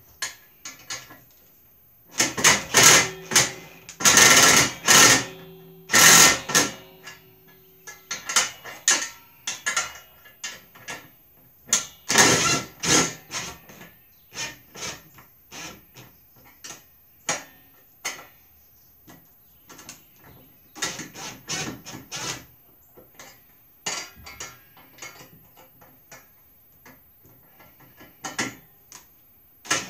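Cordless power driver with a socket running a bolt through the cart's steel frame in short runs, loudest in the first few seconds, with a wrench and metal parts clicking and clattering against the plastic bed between runs.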